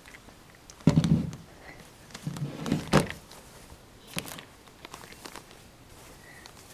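Handling noise as dolls and their sleeping bags are moved about: a few soft bumps and rustles, the loudest about a second in, more around three seconds in and one near the middle.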